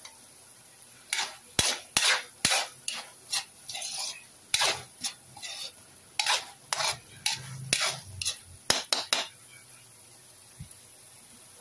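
Metal spatula scraping and stirring a chunky tuna-and-vegetable filling in a wok. It is a fast, uneven run of scrapes that starts about a second in and stops well before the end.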